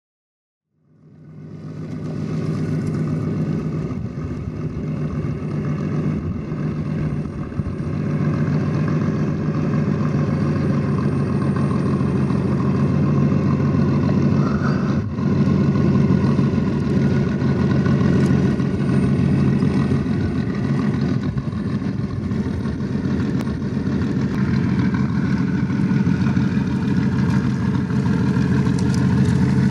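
Traxxas TRX-4 Defender RC crawler driving off-road, its AXE550 2700kV brushless motor and geared drivetrain running with a steady whine. The sound fades in about a second in.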